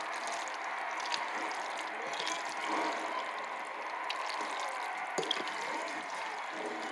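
A spoon stirring thick, cheese-coated macaroni in a glass bowl: wet squelching and sloshing over a steady background hiss, with occasional light clicks of the spoon against the bowl.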